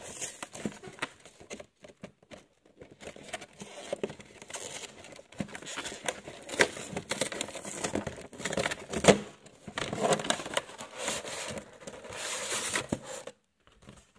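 Cardboard-and-plastic packaging of a Pokémon card collection box being handled and pried open: irregular crinkling, tearing and clicking of plastic and card, stopping briefly near the end.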